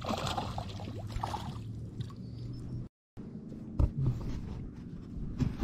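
A hooked bass splashing and thrashing at the water's surface beside a boat, over a steady low hum. After a short break, two or three dull thumps.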